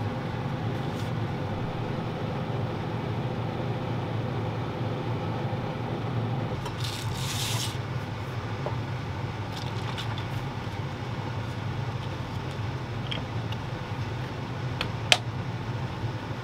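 Kitchen handling at a counter: a short scrape about seven seconds in, a few light knocks, and one sharp metallic clink near the end as a stainless steel mug is handled. A steady low hum runs underneath.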